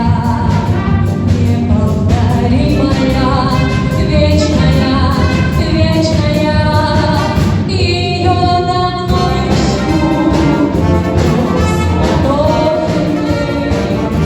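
A song with singing over an orchestral accompaniment. About eight seconds in the voice drops out for a short held instrumental chord, then the singing resumes.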